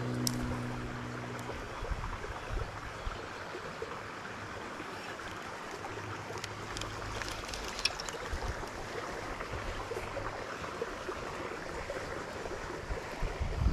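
Small swamp spillway waterfall pouring and rushing steadily.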